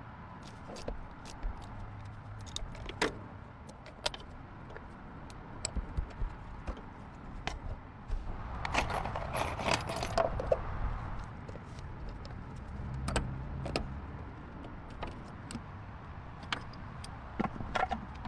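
Small metal parts and tools being handled: scattered light clicks and clinks, with a denser stretch of rattling and scraping about nine seconds in.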